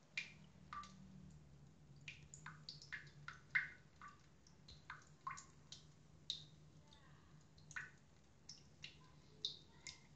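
Faint, irregular small clicks, about two a second and unevenly spaced, over a low steady hum.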